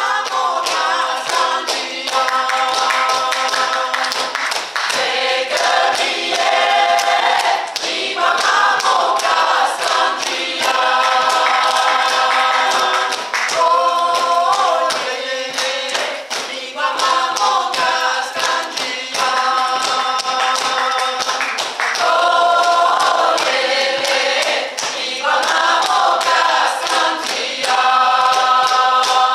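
Mixed choir singing a cappella in several parts, in phrases of a few seconds that end on held chords. A steady rhythm of hand claps and chest pats runs under the singing.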